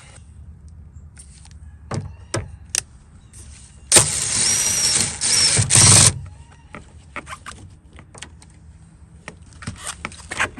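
Power driver with a Torx T20 bit running for about two seconds, backing out a door-panel screw, with clicks of the tool and bit being handled before and after.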